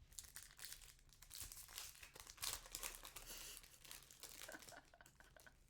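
Faint crinkling and rustling of trading cards and foil pack wrapper being handled, with many small quick clicks as the cards are slid and flipped.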